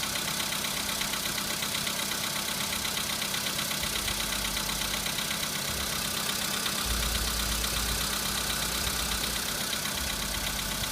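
Volkswagen Polo Sedan engine running steadily with a knock, a noise that appeared at about 15,000 km on a car with 26,000 km.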